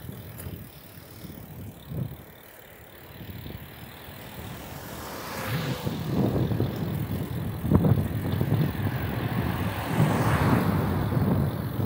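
Bicycle riding along a paved street, heard from a handlebar-mounted camera: gusty wind buffeting on the microphone and road rumble, much louder from about halfway through. A car's tyres hiss past close by near the end.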